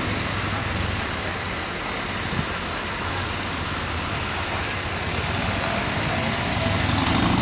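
Steady street background of traffic noise with a low engine hum, growing louder near the end; a single light knock a little over two seconds in.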